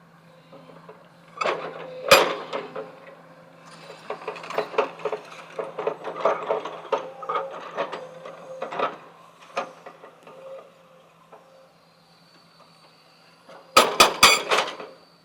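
Heavy machinery handling stone: hard clattering and knocking over a steady low machine hum, with a few loud bangs about two seconds in and a quick run of loud bangs near the end.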